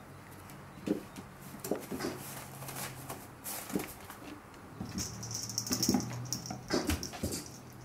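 Paws and claws of a puppy and a kitten pattering and skittering on a wooden floor during play, with scattered irregular taps and knocks that come thicker and louder in the second half.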